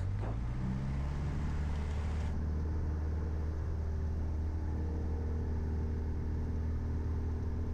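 A Piper PA-28-161's four-cylinder piston engine run up to full power for the takeoff roll, heard from inside the cockpit. Its note rises in pitch in the first second as the revs build, then holds steady.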